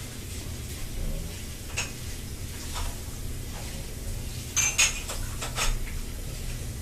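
A few light clicks and clinks over a steady low hum, single ones about two and three seconds in and a quick cluster about four and a half to six seconds in.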